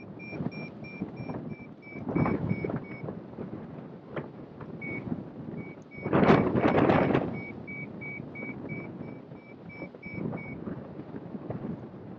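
Hang glider variometer beeping in quick runs of short high beeps, about three a second. This is the climb tone that signals rising air. Wind rushes over the microphone in gusts, loudest about six seconds in.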